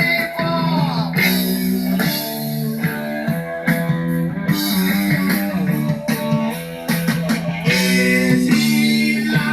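Background rock music with electric and bass guitar.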